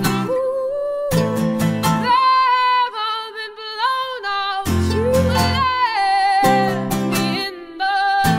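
Background music: a song with a singing voice over strummed acoustic guitar chords.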